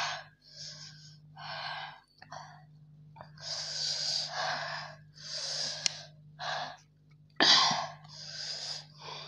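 Sharp breaths in and out through the mouth, about eight in a row, each half a second to a second long: the breathing of someone whose mouth is burning from 3x-spicy Korean fire ramen.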